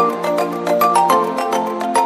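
Instrumental background music: a light tune of quick, short notes over a steady accompaniment.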